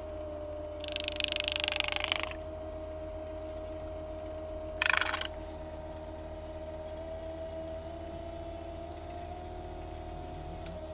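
Water splashing twice as a fishing net is hauled up out of the river by hand over the boat's edge, the first splash longer and the second short. A steady motor hum runs underneath.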